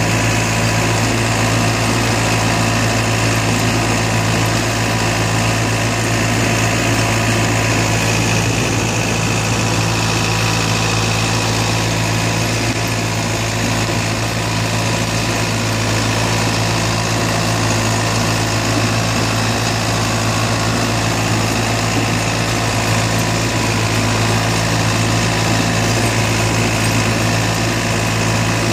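Tractor engine running steadily under load as it pulls a field cultivator and drag harrows, heard from the driver's seat.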